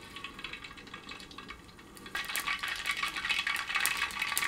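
Mustard seeds sizzling in hot coconut oil in a wide uruli. About two seconds in, the soft sizzle turns into a dense crackle as the seeds begin to pop.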